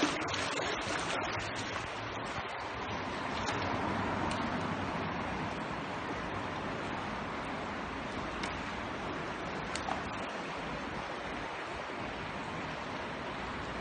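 Steady rush of river water flowing through a culvert: an even, unbroken noise with a few faint clicks.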